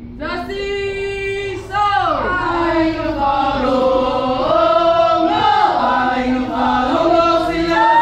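A group of voices singing or chanting together, holding long notes that slide up and down, with no instruments heard.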